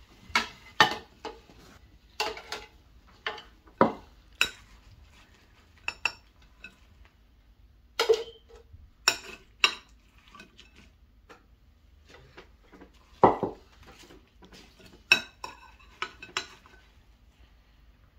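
Metal serving spoons clinking and scraping against plates and serving bowls as food is dished out, in irregular sharp knocks with short gaps between them.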